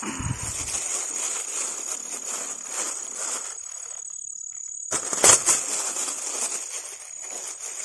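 Steady high-pitched insect buzz over close rustling and crackling, with one sharp knock about five seconds in.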